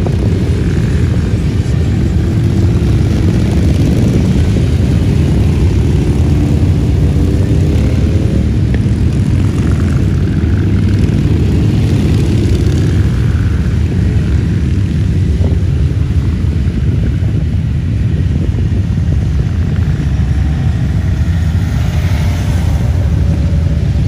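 A procession of large touring and cruiser motorcycles riding past, their engines making a continuous, loud low rumble.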